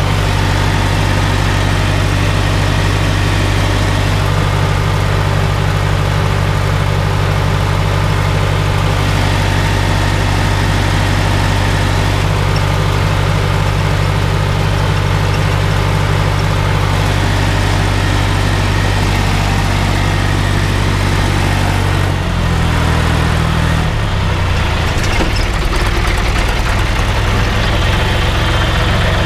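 Diesel engine of an old John Deere tractor running steadily under load while pulling a stubble plough, heard from inside the cab. About three quarters of the way through, the engine note drops and turns rougher as the revs come down.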